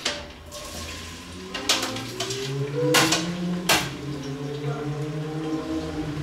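Cookware and utensils clanking at a stovetop: three sharp knocks in the middle, over a low steady hum.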